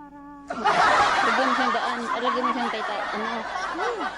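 Several people laughing and chattering at once, starting suddenly about half a second in.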